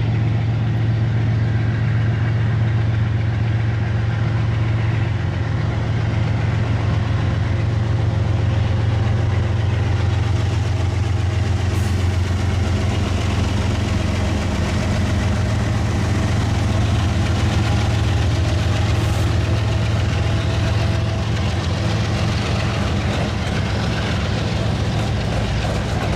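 Kansas City Southern diesel-electric locomotives running with a steady low engine drone as they lead the freight slowly past.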